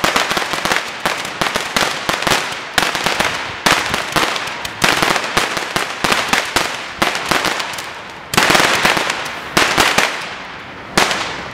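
Roman candle firing shot after shot, about one a second: each shot a sharp pop followed by the dense crackle of crackling chrysanthemum stars, in its finale. The last shot comes near the end and its crackle fades out.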